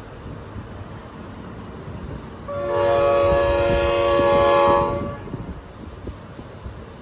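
F40PH-3C diesel locomotive's air horn sounding one long chord-like blast of about two and a half seconds, over the low rumble of the approaching train.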